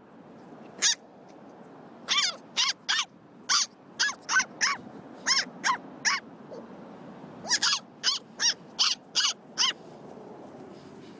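Small fluffy puppy yapping in short, high yips, about eighteen of them in two quick runs with a pause of about a second after the middle, over a steady low hiss.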